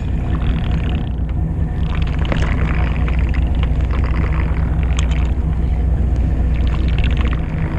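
Fishing boat's engine running steadily, a low rumble, with a couple of faint clicks about two and five seconds in.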